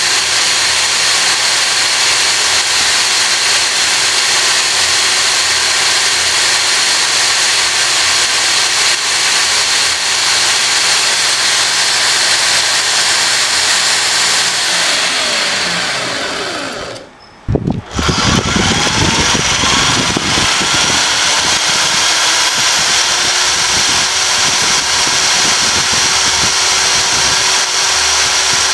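500-watt electric drill at about 2000 RPM spinning a cardboard scale-model rear axle through its bevel gears, running steadily. About two-thirds of the way through it slows and stops, then starts again abruptly and speeds back up to a steady run.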